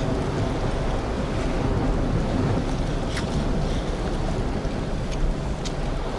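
Wind rumbling on the microphone over the steady wash of the sea against the shore rocks, with a few faint sharp ticks.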